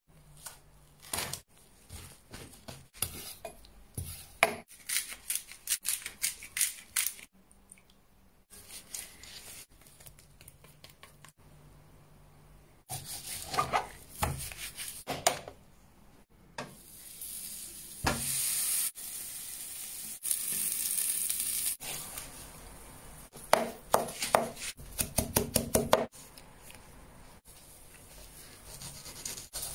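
Raw pork ribs handled and rubbed with seasoning on a plastic cutting board: uneven wet slaps, knocks and rubbing. A steady hiss runs for several seconds in the middle, and a quick run of knocks comes near the end.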